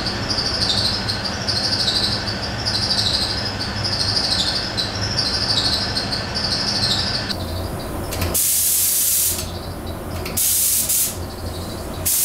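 Paint spray gun spraying in short bursts of hiss, three of them in the last four seconds. Before that, a steady hum with a high chirp-like sound repeating about once a second.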